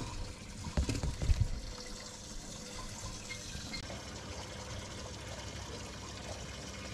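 Steady trickling, pouring water, with a few low knocks of handling about a second in.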